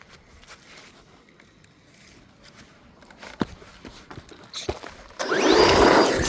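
Blackzon Smyter Turbo RC car's electric motor whining and rising in pitch, with tyre noise, as it speeds by, loud for about a second near the end. Before that it is mostly quiet, with one sharp click.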